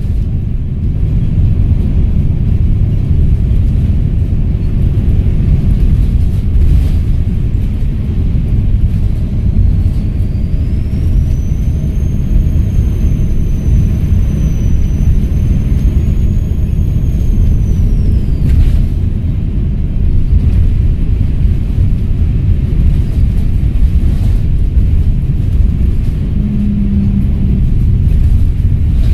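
Volvo B7RLE bus's turbocharged six-cylinder diesel running under way with a steady low rumble. About ten seconds in, a high turbo whistle rises, holds for several seconds, then falls away.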